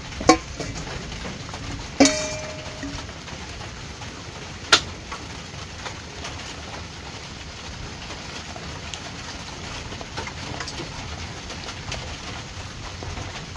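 A metal ladle clinking against a metal soup pot as water spinach is added to the soup: three sharp clinks, the loudest about two seconds in with a short ringing tone, over a steady hiss.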